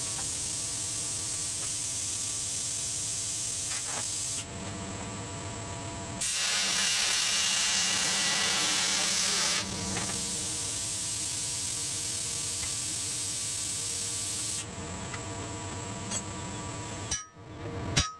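Steady buzzing hiss of an electric arc on a steel H-beam, welding or plasma cutting, in stretches that cut in and out abruptly. Near the end it drops away and there is a sharp clink.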